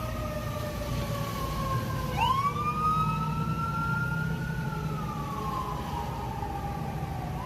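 Wailing sirens of a fire truck and an ambulance, two overlapping. One tone falls slowly all through, and a second comes in about two seconds in with a quick rise, holds high, then sinks slowly near the end, over a steady low rushing noise.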